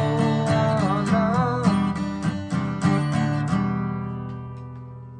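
Acoustic guitar strummed in a steady rhythm under a wavering melody line, then a final chord about three and a half seconds in that rings out and fades away, closing a devotional chant.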